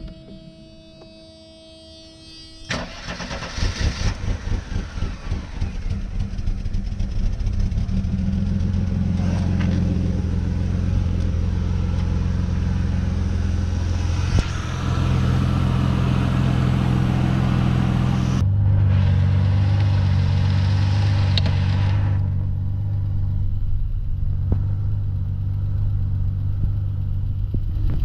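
Mercedes 190E's M103 straight-six cranking briefly, catching about three seconds in and settling to a steady idle. This is the engine being diagnosed for hard starting, misfire and rough running.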